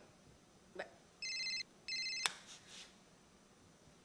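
Phone ringing: two short bursts of electronic ringing a little over a second in, the second ending in a sharp click.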